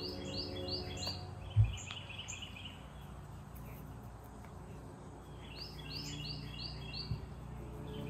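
A songbird singing a quick run of about five repeated high notes, twice, about five seconds apart, with a fainter rapid trill between, over a steady low hum. A soft low thump about one and a half seconds in.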